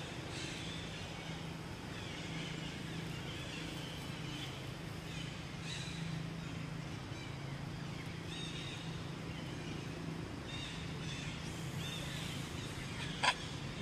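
Outdoor ambience: short high chirps every few seconds over a steady low hum, with a single sharp click near the end.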